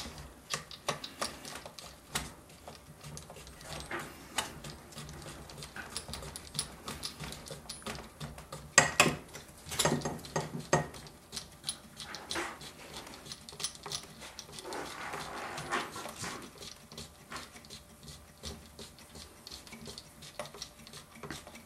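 Metal clicks and light scraping as a many-threaded steel nut on a Remington 740 rifle is turned by hand onto its threaded tube. A louder run of clicks comes about nine to eleven seconds in.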